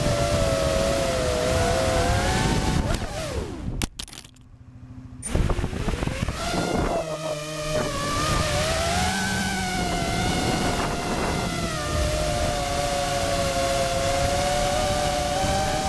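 Quadcopter drone's motors and propellers whining steadily in flight, the pitch wavering slightly. The sound drops out briefly about four seconds in and resumes.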